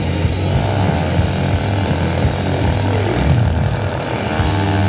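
Dirt-bike engine running with a steady drone, its pitch falling briefly about three seconds in, over loud show music.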